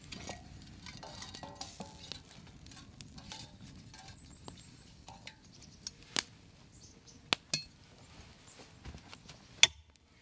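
A campfire being tended: scattered light clinks and knocks of a metal tool against cast-iron cookware and firewood, with a few sharper knocks in the second half.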